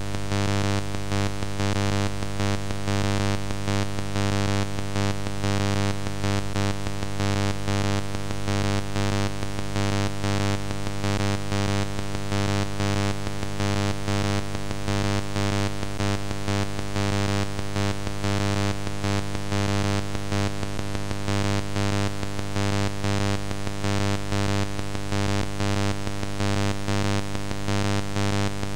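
Steady background synthesizer music.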